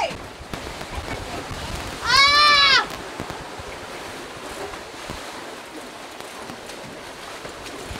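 A single shrill cry that rises and then falls in pitch, lasting under a second, about two seconds in, over a steady wash of wind and surf.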